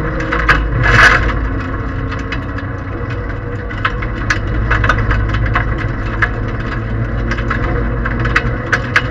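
Cabin sound of a Toyota Aygo 1.0 rally car flat out on a wet gravel stage: the three-cylinder engine running steadily under load over the rumble of tyres on gravel, with frequent sharp ticks of stones striking the underbody. A brief louder rush about a second in.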